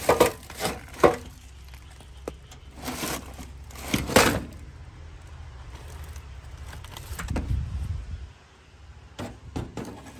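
A rusty metal car amplifier being pulled out of a pile of scrap and handled: irregular knocks, clatters and short scrapes of metal and junk, over a low rumble that stops about eight seconds in.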